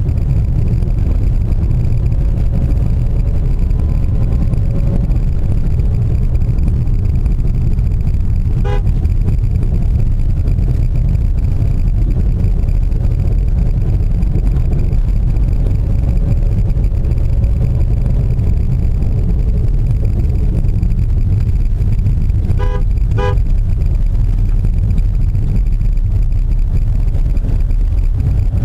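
Steady low rumble of a car driving, heard from inside the cabin. A short horn beep sounds about a third of the way in, and two quick beeps follow later.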